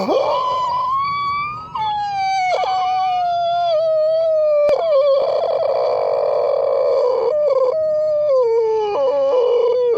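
A person crying in one long, drawn-out high wail, the pitch sliding slowly downward, with a couple of short catches in it.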